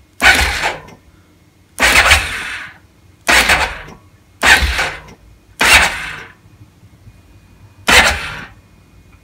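Kymco MXU 450i ATV's electric starter cranking the engine in six short bursts of about half a second each, the engine not catching. This is the fresh oil being pushed round the engine after an oil change.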